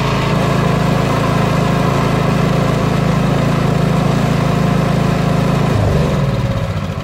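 Briggs & Stratton 208 cc single-cylinder OHV engine on a snowblower running steadily, freshly filled with SAE 50 oil. About six seconds in it is shut off and winds down to a stop.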